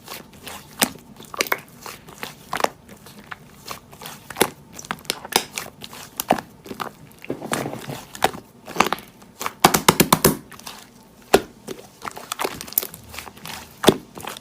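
Slime being squeezed and pressed by hand, giving a run of sharp crackling clicks and pops that comes thickest around eight to ten seconds in.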